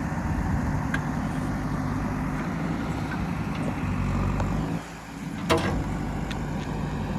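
JCB 3DX backhoe loader's diesel engine running steadily while working. It drops in level briefly just before five seconds in, then a single sharp knock is heard.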